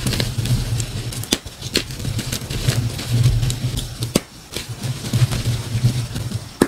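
Gym chalk blocks and reformed chalk being squeezed and crumbled by hand: crunchy crackling and snapping as the chalk breaks into powder, over a low hum.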